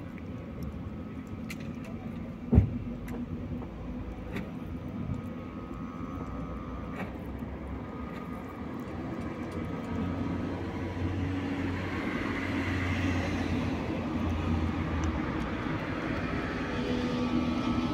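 A motor vehicle's engine running: a steady low hum and rumble that grows louder from about ten seconds in. One sharp knock stands out about two and a half seconds in.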